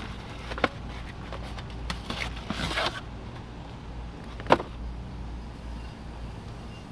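Floor jack handle pieces and packaging being handled while unboxing: a few light clicks and knocks, a short stretch of scraping and rustling about two and a half seconds in, and one sharp clack about four and a half seconds in.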